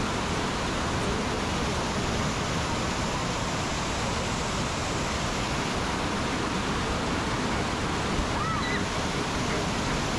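River water pouring over a low weir and churning in the whitewater below it, a steady rush.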